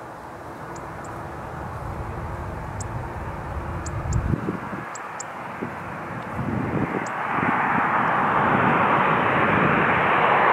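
Jet engine noise from a Boeing 737-800's twin CFM56-7B turbofans on final approach with the landing gear down. It grows steadily louder as the airliner comes closer and fills out most in the last three seconds or so.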